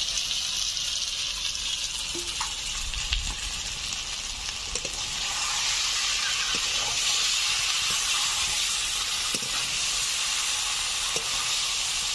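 Spice masala sizzling in hot oil in a pan as fried eggs, potatoes and green peas are stirred through it, a steady frying hiss with a few light knocks of the spatula. The masala has been fried until its oil separated.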